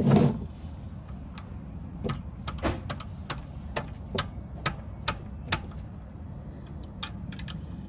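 Ratchet wrench clicking in short strokes, about two clicks a second, as it tightens a fastener under the car during an oil change; a louder knock right at the start.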